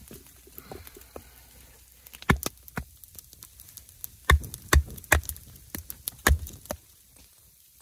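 Irregular sharp knocks and snaps, about ten of them spread over five seconds, beginning about two seconds in.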